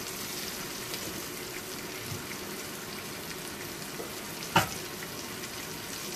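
Green bell pepper pieces sizzling in a frying pan on an induction cooktop, a steady crackling hiss, with one sharp knock about four and a half seconds in.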